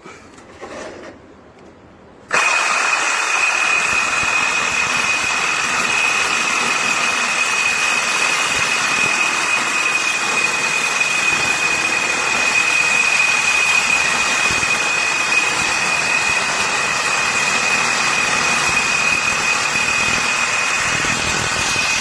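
Milwaukee M18 Hackzall cordless reciprocating saw switched on about two seconds in, then running steadily with a high, even whine.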